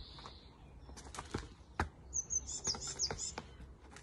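Skipping rope slapping the paving slabs and feet stepping over it: a run of sharp, irregular clicks, the loudest a little under two seconds in. A songbird chirps in short repeated trills from about two to three and a half seconds in.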